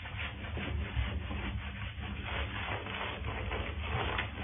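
Hands rubbing and scrubbing a wet cat's fur in bathwater: repeated scratchy rubbing strokes over a steady low hum.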